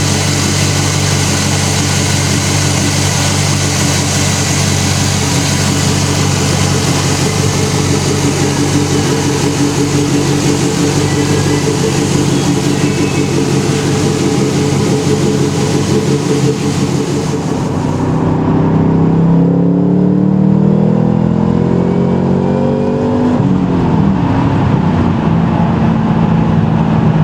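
Supercharged LS3 V8 of a 2010 Camaro, newly fitted with an Edelbrock E-Force supercharger, idling steadily with a bright hiss over it. About two-thirds of the way through, the hiss drops away and the engine revs up over a few seconds, comes back down and runs steady again.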